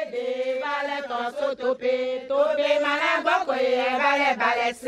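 Women's voices chanting a song together, with long held notes on a few steady pitches in short phrases. The singing stops right at the end.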